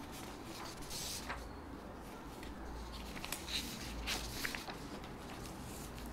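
Paper handling: a sheet rustling and scraping as it is moved into place, in a few short soft bursts, the busiest stretch about three to four and a half seconds in.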